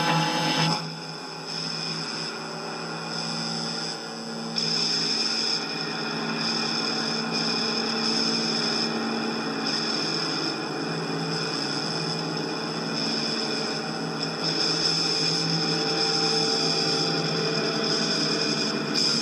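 Steady electronic drone: several held tones over a hiss. It drops back about a second in and swells again about four seconds later.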